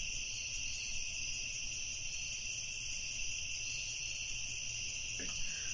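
Crickets chirping steadily: a night-time cricket ambience sound effect laid under the scene.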